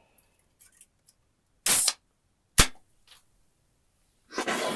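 A short hiss, then a single sharp crack a second later, followed near the end by a longer rushing noise.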